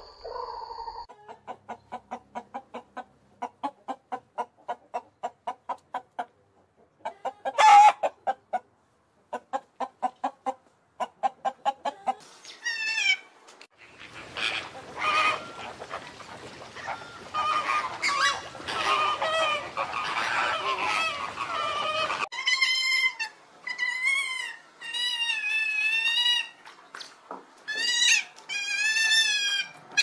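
Swamphen clucking in a rapid series of short notes, with one loud squawk about eight seconds in. Then, from about halfway, a flock of flamingos calls together in a dense gabble, giving way near the end to a run of separate wavering calls.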